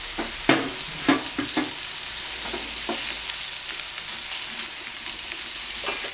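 Sliced onion and green and red bell pepper strips sizzling in vegetable oil in a frying pan, a steady hiss. There are a few light knocks in the first two seconds and one near the end.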